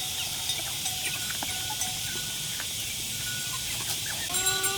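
Chickens calling: scattered short clucks and peeps, some held for a moment, over a steady high-pitched hum.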